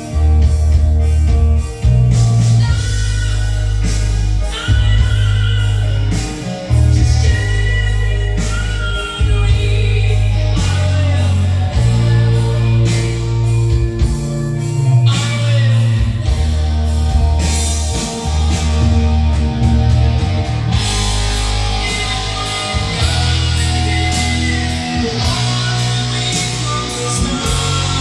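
Rock song with singing, guitar and a heavy bass line, played loud through hi-fi speakers: a Philips FWC555 mini system driving Sony ZUX9 speakers at full volume.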